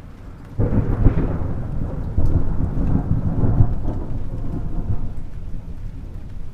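Thunder in a rainstorm: a clap breaks about half a second in and rolls on in low rumbling swells, fading over several seconds, over the steady hiss of rain.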